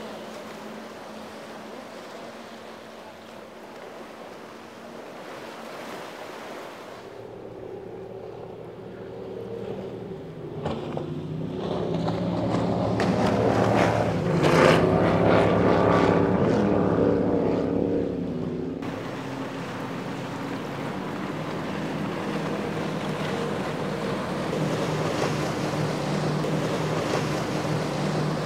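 Powerboat engines running at speed over the hiss of wake spray and water. First an outboard-powered fire-rescue boat is heard. Then a twin 750 hp offshore performance boat comes in and passes loudly about halfway through, its engine pitch rising and then dropping. After that a centre-console boat with 300 hp outboards runs steadily.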